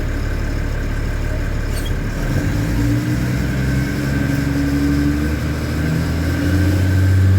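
LMTV military truck's diesel engine heard from inside the cab while driving, running steadily at first, then pulling harder from about two seconds in, its pitch and loudness rising toward the end as the truck accelerates.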